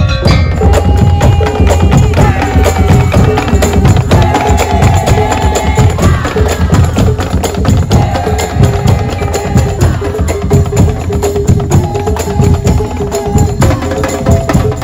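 Daul Madura ensemble playing loud, fast, dense drumming and block percussion over a heavy bass beat, with a melody of held notes running over it.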